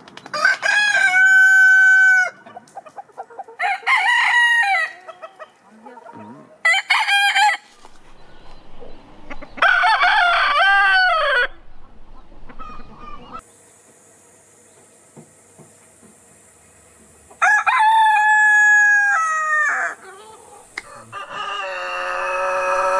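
Roosters crowing, about five crows of one to two seconds each: first an Augsburger cock crowing several times, then, after a long pause, a Yokohama cock.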